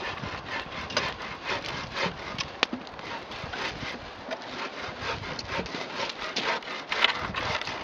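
Hand bow saw cutting through a dry driftwood log, the blade rasping in steady back-and-forth strokes.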